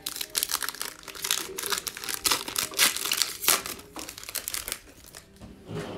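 Foil wrapper of an NBA Hoops trading card pack crinkling as it is torn open by hand: a dense run of crackles that thins out and quietens about four and a half seconds in.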